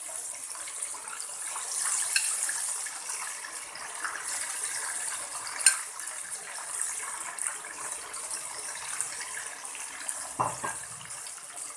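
Marinated rohu fish slices frying in hot oil in a pan: a steady sizzle with scattered crackles and one sharp spatter pop about halfway through.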